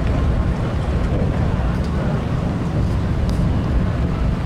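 Wind buffeting the microphone in a steady low rumble that masks most other sound.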